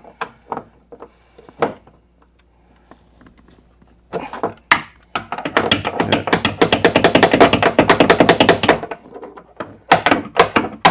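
A few separate knocks, then a fast run of sharp taps on the Jeep XJ door check stop, about ten a second for several seconds, as it is tapped into place inside the door. A few more knocks near the end.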